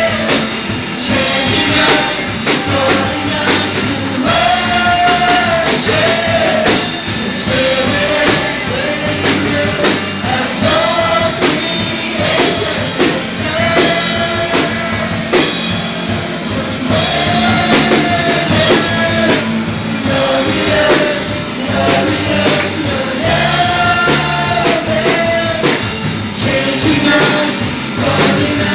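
Contemporary worship song sung by a lead singer on a microphone and a congregation singing along, over instrumental accompaniment with a steady beat.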